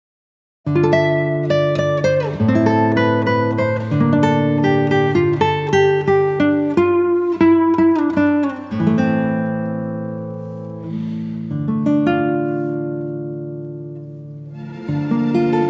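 Background instrumental music of plucked strings, starting after a brief silence. Notes ring out and fade through the middle, and the playing picks up again near the end.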